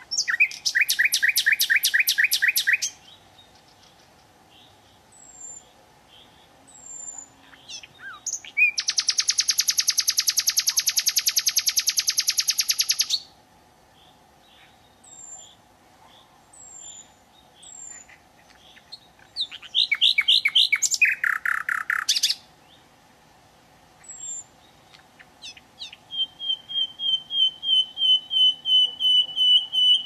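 Common nightingale singing in separate phrases: a burst of rapid repeated notes, then a long loud rattling trill of about four seconds, another fast phrase, and near the end a run of piping whistles on one pitch that grow louder. Soft single notes and thin high whistles fill the pauses between phrases.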